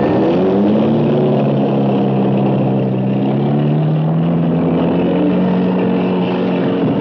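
Jeep engines running under load, the engine note climbing steadily as the jeeps accelerate, then dropping and picking up again near the end.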